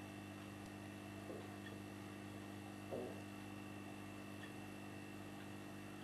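Low steady hum and room tone with no clear bird calls; two faint soft knocks, about one second and three seconds in, the second a little louder.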